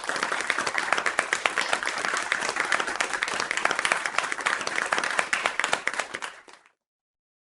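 Applause: many hands clapping in a dense patter, dying away about six and a half seconds in.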